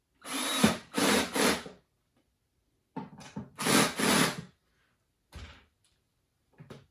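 Cordless drill-driver driving wood screws into pre-drilled holes, running in short spurts: a cluster of three quick runs, a pause, two more, then one brief blip.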